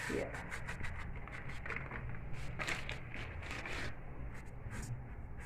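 Salt being poured in from a packet to heat as the bed for oven-free baking: a rapid run of small grainy clicks and rustles that thins out near the end.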